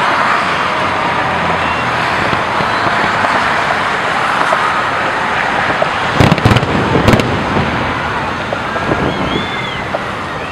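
Aerial firework shells bursting: a quick cluster of three or four sharp bangs a little past halfway, over a steady wash of background noise from the crowd and city.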